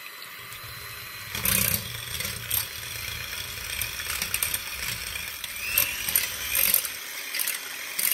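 Electric mixer switched on at low speed, its motor humming steadily while the beaters whisk egg whites in a bowl, clicking and scraping against it; it stops near the end.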